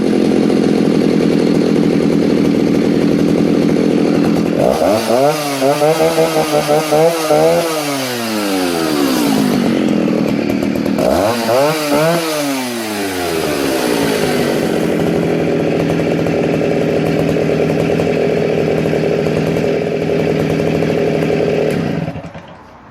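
Stihl 08S 56cc two-stroke chainsaw engine idling, then revved up twice to high revs and let fall back to idle, and cut off near the end. It revs cleanly and responsively.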